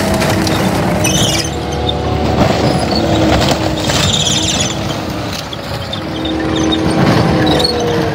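A large vehicle engine running steadily and loudly, its pitch drifting slightly, with brief high squeals about a second in, near the middle and near the end.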